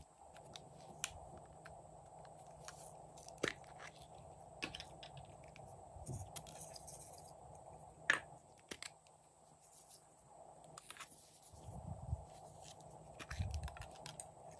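Scattered light clicks and taps of small plastic glitter containers being handled while loose glitter is sprinkled onto a tray of slime, with a sharper click about eight seconds in and a couple of soft low thumps near the end.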